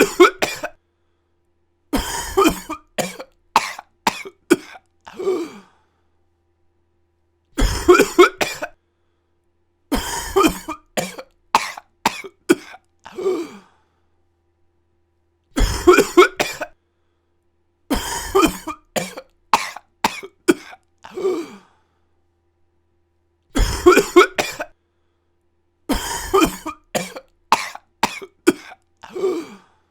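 A person coughing in repeated fits. Short fits of two or three coughs alternate with longer runs of several coughs, and the fits are separated by a second or two of dead silence.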